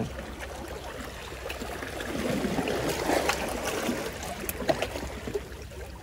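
Seawater sloshing and trickling among shoreline rocks, swelling a little about two seconds in, with a few light clicks near the end.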